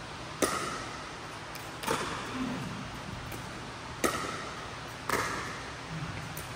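Pickleball paddles striking a plastic pickleball back and forth in a rally: four sharp pocks a second or two apart, each ringing briefly in the echo of a large indoor court hall, with fainter ticks between them.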